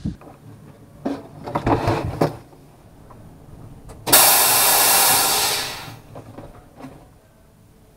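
A sudden loud hiss starts about four seconds in, runs steadily for under two seconds and then tails off. It is preceded by a few brief, uneven bursts of sound.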